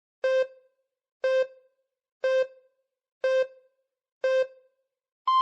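Electronic countdown beeps: five short beeps, evenly one second apart, then near the end a longer beep an octave higher, like a time signal.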